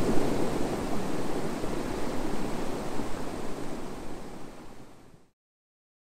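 Surf of small waves breaking and washing up a sandy beach, a steady rushing hiss that fades out and stops about five seconds in.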